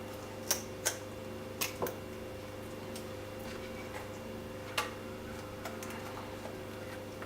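A few sharp clicks, four close together in the first two seconds and one more near the end, as a raw sea bass is cut and cleaned, over a steady electrical hum.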